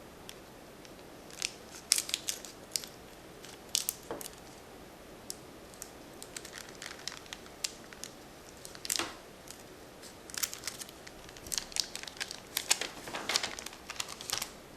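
Plastic wrapper of a rack pack of trading cards being crinkled and torn open by hand: irregular crackles and sharp snaps, coming more thickly in the second half.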